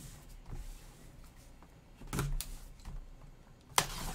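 Gloved hands handling a sealed cardboard mini helmet box: light scuffs and taps of cardboard, a soft knock about two seconds in, and a sharp click near the end.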